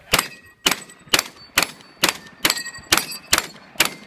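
Shotgun fired nine times in quick succession at steel plate targets, about two shots a second, with a short metallic ring after several shots as the plates are hit.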